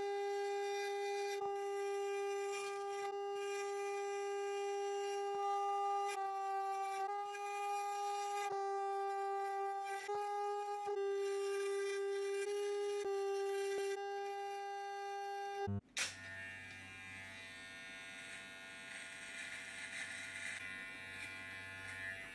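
Wahl electric hair clippers running with a steady, buzzing tone, its pitch shifting slightly every second or two as they cut through long hair. About fifteen seconds in, the sound changes abruptly to a quieter, hissier clipper buzz.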